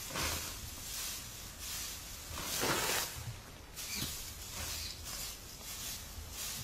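Dry straw rustling and crackling as it is scooped by hand and dropped onto a woven plastic sack, in repeated strokes about once a second, one louder than the rest a little before the middle.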